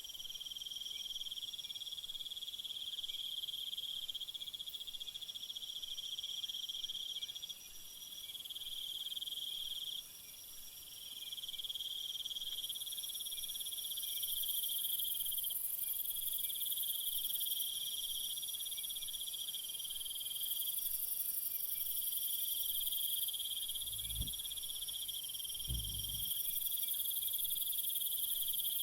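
A chorus of crickets and other insects trilling steadily, one high trill pausing briefly every few seconds, joined about twelve seconds in by a louder, even higher-pitched trilling in long stretches. Two soft low thumps come near the end.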